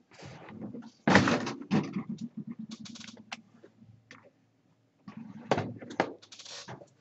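Irregular clicks, knocks and rustles close to a microphone, loudest about a second in and again around five and a half seconds.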